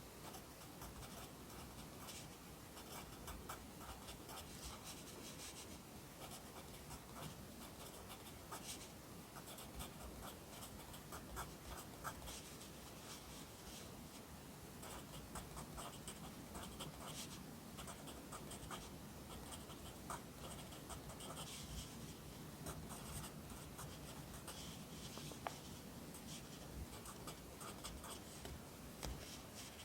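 Handwriting on paper: Korean characters written in many short, quick strokes, the writing tip scratching steadily across the page.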